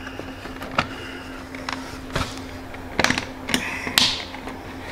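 Plastic cover being pushed onto a motorcycle's rear fender by hand: scattered taps and knocks, then a cluster of sharp clicks about three seconds in as its clips snap on, and a short scrape of plastic around four seconds.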